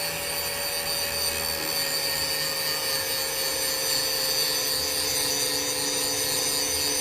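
Angle grinder with a grinding disc running steadily while grinding metal, its pitch sagging slightly under load.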